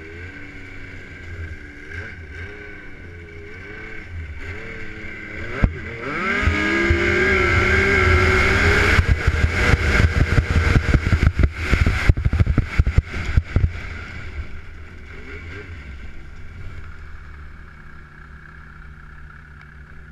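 Snowmobile engine running and blipping, then throttled hard about six seconds in, rising to a loud, high steady rev as the sled skims across open water. For several seconds water spray and chop beat against the sled over the engine, with a single sharp click just before the throttle opens. Near the end the engine settles to a lower steady run.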